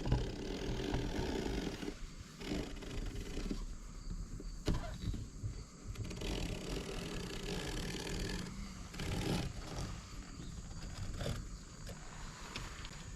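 Small knife scraping and slicing along window-screen mesh beside the spline to trim off the excess, with intermittent rustling and a few light clicks of handling.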